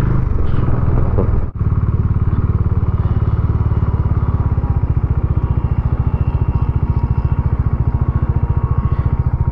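Motorcycle engine running at steady revs, its low exhaust note beating in a fast, even pulse; the sound drops out for an instant about a second and a half in.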